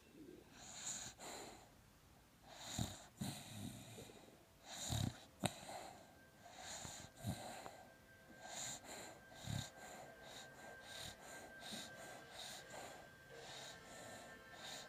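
A sleeping pit bull puppy snoring and wheezing in quick, irregular breaths, a few of them deeper and louder than the rest, the restless breathing of a dog dreaming. A faint steady tone comes in about a third of the way through.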